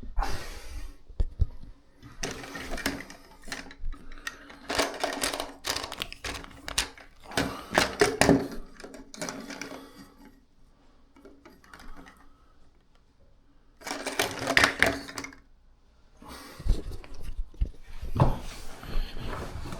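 Plastic toilet-tank repair parts being handled and adjusted by hand: irregular bursts of clicking, rattling and knocking, with a quieter pause in the middle.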